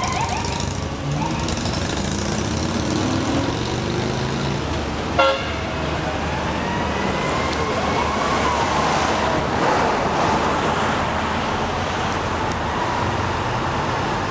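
Emergency-vehicle sirens on approaching fire engines and police cars, slow rising and falling wails over the running engines and road noise. A short loud horn blast sounds about five seconds in.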